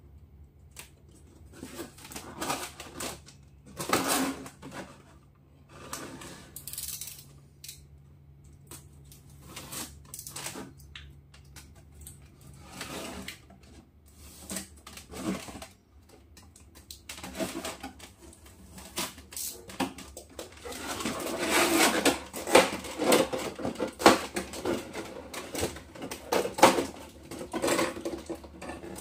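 Thin clear plastic clamshell packaging being handled and flexed: irregular crackles and clicks. The crackling thickens into a dense, louder run in the last third as the tray's halves are pried apart.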